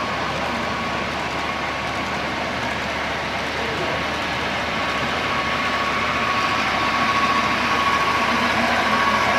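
HO scale model train of hopper cars rolling along the layout, a steady running noise with a faint whine that grows a little louder in the second half, over the hubbub of a busy exhibition hall.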